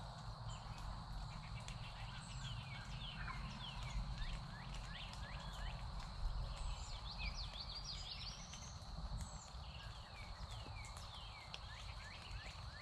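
Songbirds singing in the woods: many short, down-slurred high notes repeating, with a run of quick rising notes around the middle. Underneath are a steady high hum and a low rumble.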